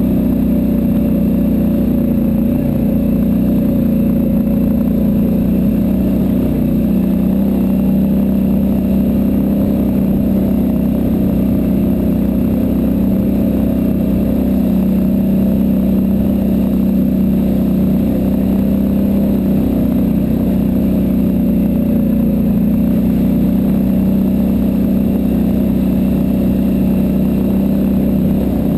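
ATV engine running at a steady cruising speed on a gravel trail, an even drone that holds without pause.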